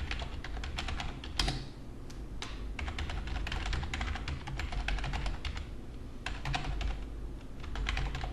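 Typing on a computer keyboard: a quick, irregular run of keystroke clicks, with one louder stroke about one and a half seconds in.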